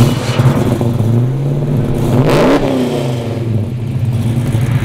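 Car engine revving with a deep, steady rumble; about two and a half seconds in its pitch climbs and drops again with a rushing whoosh.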